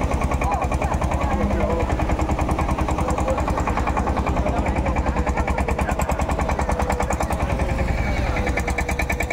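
Fishing boat's diesel engine running steadily with a fast, even chug.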